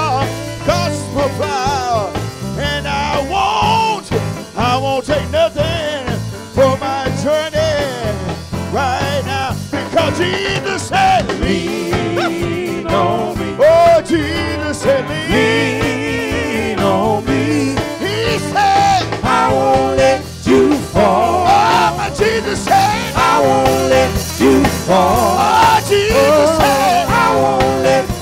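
Live gospel performance: a lead singer sings long, sliding vocal lines into a microphone over a band with electric bass guitar and keyboard.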